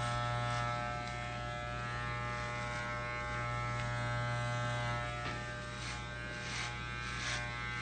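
Electric hair clippers buzzing steadily as they are run over very short hair close to the scalp, with a few short rasps in the second half.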